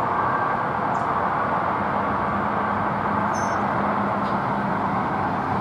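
Steady outdoor urban roar with a faint low hum underneath. A few short high chirps come through about a second in and again around three and four seconds.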